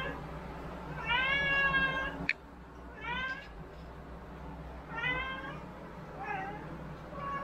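A domestic cat meowing again and again: a long meow about a second in, then shorter meows every second or two. A single sharp click comes between the first and second meows.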